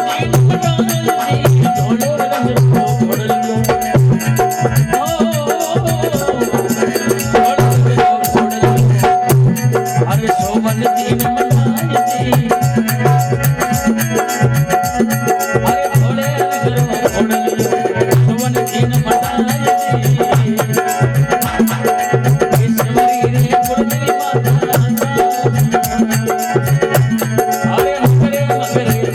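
Instrumental interlude of a Rajasthani folk bhajan: fast, steady hand-drum beat with a rattling shaker, over a melody instrument repeating a held note.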